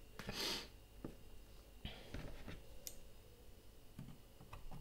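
Faint clicks and rubbing as the opened Blackmagic camera body and its metal top casing are handled and its ribbon cables are fitted. There is a short hissing rustle about half a second in.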